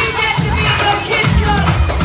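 Loud party music with a heavy bass beat, over a crowd of voices shouting and cheering.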